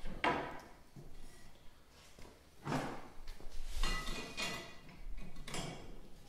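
A steel Snowtracker carbide runner clattering and scraping against a plastic Ski-Doo Pilot 5.7 ski as it is set in place and its bolts are pushed through the drilled holes. The sound comes in several short separate bursts with a faint metallic ring.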